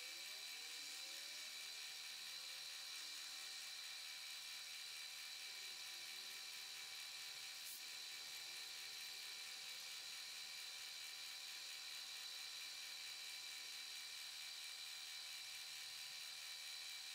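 Milling machine spindle running with a steady high whine as the end mill cuts a metal part clamped on a rotary table, with one faint tick about eight seconds in.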